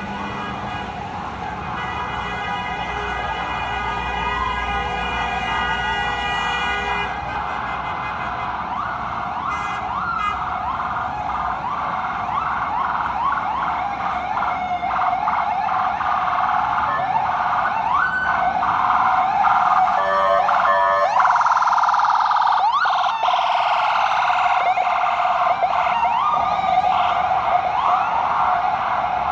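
FDNY EMS ambulance siren approaching, switching between a steady wail and a fast rising-and-falling yelp and growing louder, with a brief stuttering blast about twenty seconds in. A steady tone sounds for several seconds early on.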